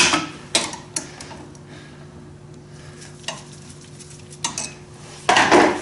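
Hand tools and metal parts clinking and knocking during carburetor work, with a louder scraping rattle near the end, over a faint steady hum.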